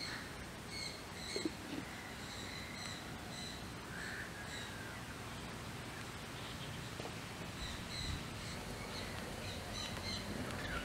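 Birds chirping in short, repeated high notes over a steady outdoor hiss, with a brief knock about a second and a half in.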